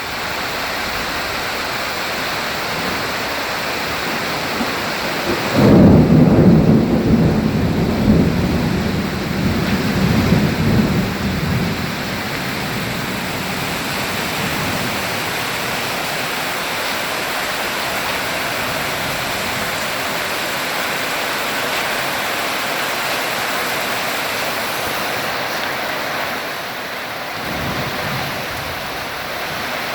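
Steady rain falling, with a loud rumble of thunder starting about five seconds in and rolling on for several seconds, then a fainter rumble near the end.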